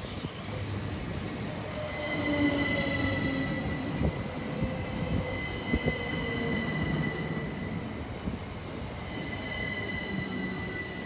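Southern Class 377 Electrostar electric multiple unit running slowly past along the platform. There is a steady high-pitched squeal from wheels or brakes, and a lower motor whine that falls in pitch as the train slows, over the rumble of the wheels on the rails.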